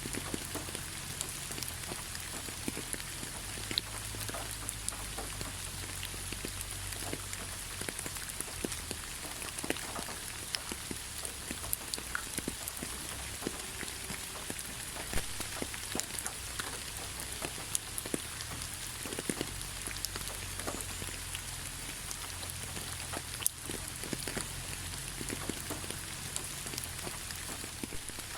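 Steady rain falling, an even hiss with many separate drops ticking on a hard surface at irregular moments.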